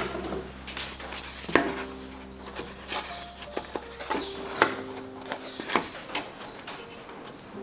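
Lo-fi jazz-style background music: soft sustained chords with sharp percussive clicks every second or so. The low bass drops out about halfway through.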